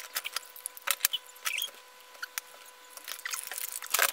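Shopping items and their packaging being handled: irregular crinkles, taps and clicks of plastic and paper, over a faint steady hum.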